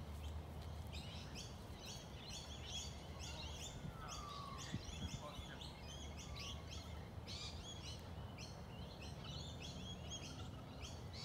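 Birds chirping in a dense chorus, many short calls overlapping, over a steady low rumble.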